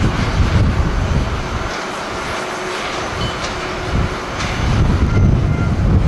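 Jet engines of a twin-engine airliner on final approach and touching down, a steady jet noise that grows a little louder near the end. Strong gusty wind buffets the microphone throughout.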